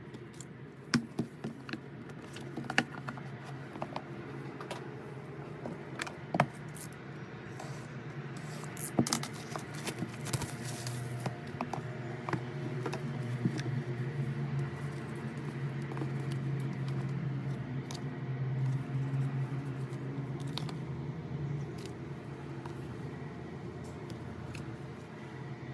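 Album packaging being handled: scattered sharp clicks and rustling from plastic and cardboard, thickest in the first half, over a steady low hum.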